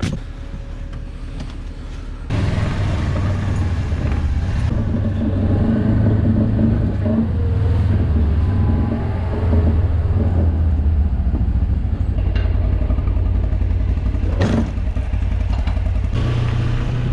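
Kubota engine running under load as the vehicle drives, a steady low drone with some clatter that gets suddenly louder about two seconds in. A single sharp knock comes near the end.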